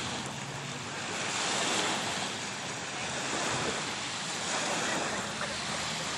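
Small waves breaking and washing on a sandy lake shore, rising and falling gently in loudness, with wind buffeting the microphone.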